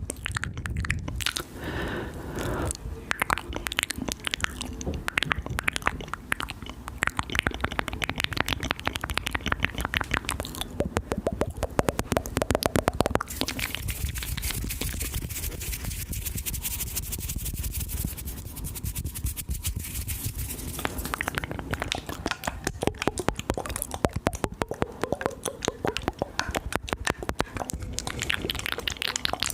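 Close-miked ASMR mouth sounds: a dense run of wet clicks and smacks. A stretch of steady hiss comes in partway through.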